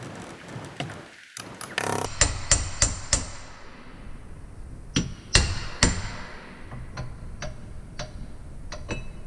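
Ball-peen hammer striking a homemade steel face spanner wrench to tighten the gland of a hydraulic bucket tilt cylinder. There are two runs of sharp metal blows, four and then three, followed by several lighter taps.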